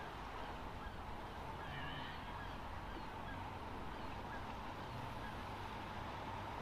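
Faint calls of birds, a few brief ones about two seconds in, over a steady low background noise.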